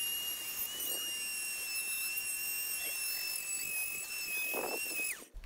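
Rotary tool running with a steady high-pitched whine while a stone cabochon on its mandrel is sanded against 220-grit silicon carbide sandpaper. The whine cuts off suddenly near the end.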